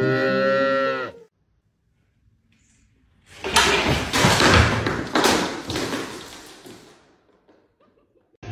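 Loud banging and clattering of things crashing down as a cat leaps at a wall-mounted shelf, with several sharp knocks, fading out over about three seconds. Before it, piano music stops about a second in.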